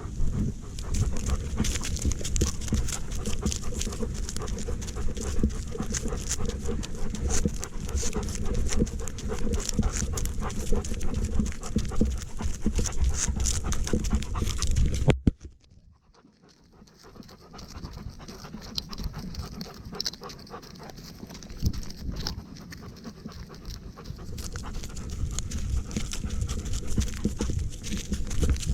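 Dog panting close to the microphone, with rustling and scuffing from its movement. About halfway through the sound cuts out abruptly, then returns fainter and slowly builds again.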